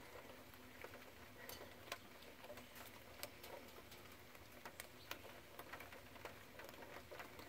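Near silence: faint background with scattered, irregular light ticks and clicks.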